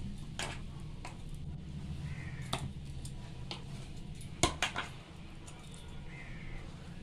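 Scattered clinks and knocks of a steel bowl against a steel plate as a sticky dough-like mixture is scooped by hand onto the plate, with the loudest cluster of knocks about halfway through, over a steady low hum.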